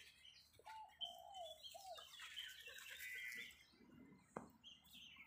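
Faint, distant bird calls and chirps, with a short run of four lower calls about a second in and a single sharp click a little past four seconds.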